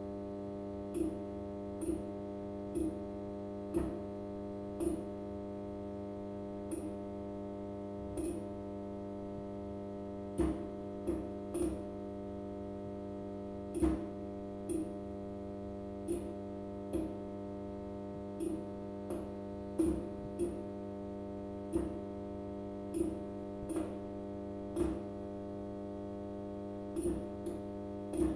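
Fluorescent tube light humming steadily, with irregular sharp clicks about once a second.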